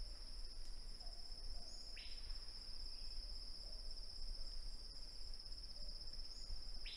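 Steady high-pitched trilling of insects, with two short falling chirps, one about two seconds in and one near the end.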